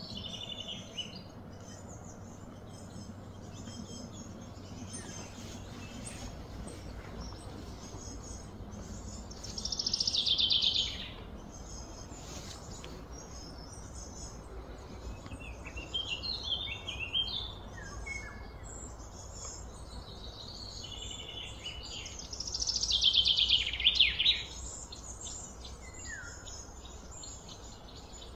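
Birds calling and chirping, with two louder calls about ten and twenty-three seconds in, each a quick run of notes falling in pitch over a second or two, over a low steady rumble of background noise.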